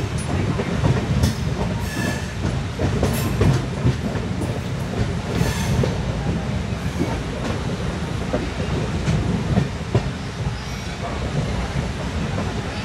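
LHB passenger coach running along the track: a steady low rumble of wheels on rail, with irregular clicks and knocks as the wheels pass over rail joints, and a short high squeal about two seconds in.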